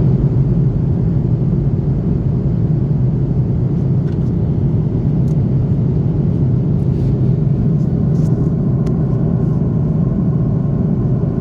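Steady low rumble of airliner cabin noise, even throughout, with a few faint ticks on top.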